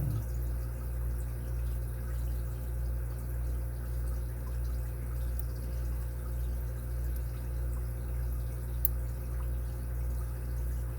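Steady low hum with a slow, even pulse throughout, over which a lock pick scrapes and ticks faintly against the pins of a dimple bike lock, with one sharper tick near the end.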